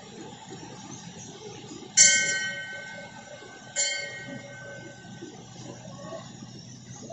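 A temple bell struck twice, about two seconds in and again under two seconds later, each strike ringing out and fading; the first is the louder. Under it runs a steady rush of flowing water.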